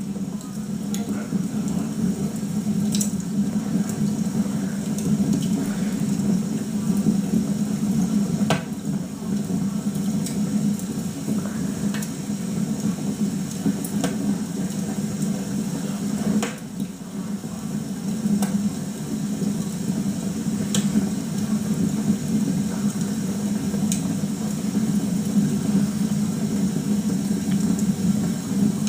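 Televised log fire crackling, with a steady low rumble and a sharp pop every few seconds.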